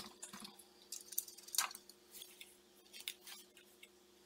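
Faint, irregular plastic clicks and rustles of wires and connectors being handled and pulled loose from a CRT television's circuit board, over a faint steady hum.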